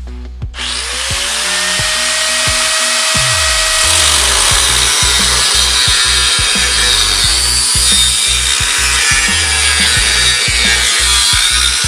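A power tool starts up about half a second in and cuts steadily into sheet metal of a van's body with a loud, even hiss. Background music with a steady beat plays under it.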